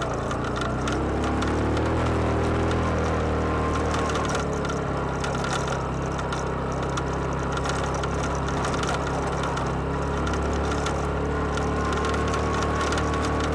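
ATV engine running under way on a rocky gravel trail, its pitch rising about a second in and then holding steady, with scattered clicks over it.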